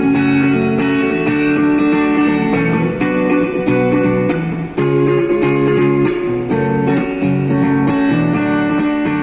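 Guitar playing an instrumental passage of a song, chords strummed and plucked in a steady rhythm.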